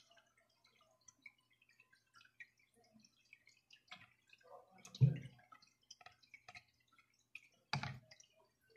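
Faint, scattered wet clicks and light handling noise from fingers working cucumber ribbons and wooden skewers over a plastic cutting board, with a louder thump about five seconds in and another knock near the end.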